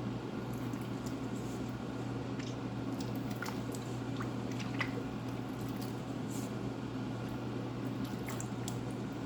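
Tomato being squeezed and crushed by hand in tamarind water: irregular soft wet squelches and drips, over a steady low hum.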